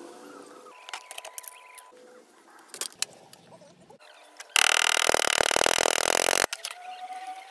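Light metallic clicks and taps as steel parts are handled, then, about four and a half seconds in, a loud two-second run of rapid hammer blows on a steel plate, with the steel ringing. The hammering peens over the rivet that holds the latch on the steel stove door. It stops suddenly.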